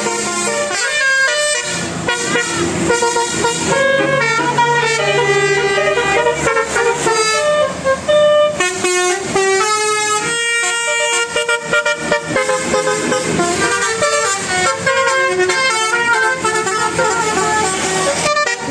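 Telolet horns on Indonesian buses playing quick melodic tunes: runs of pitched horn notes stepping up and down, one tune straight after another.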